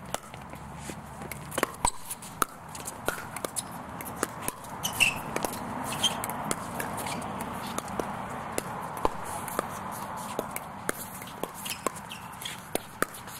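Pickleball doubles rally: paddles striking the hollow plastic ball in sharp pocks at irregular spacing, with shoes scuffing and shuffling on the hard court.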